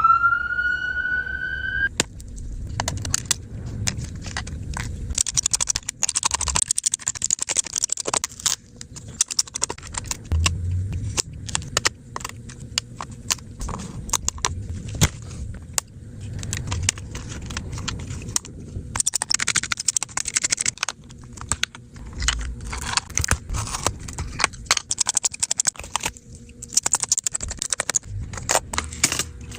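A rising whistle-like tone for about the first two seconds. Then a long run of clicks, scrapes and rattles from a laptop's small hard plastic and metal parts being handled as it is opened up and cleaned.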